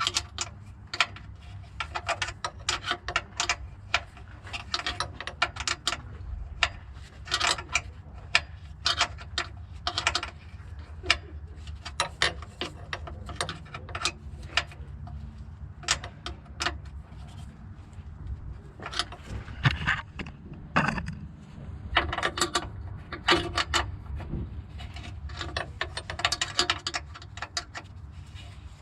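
Ratchet wrench clicking in short runs, with scattered sharp metal clicks and knocks of hand tools at work, over a steady low hum.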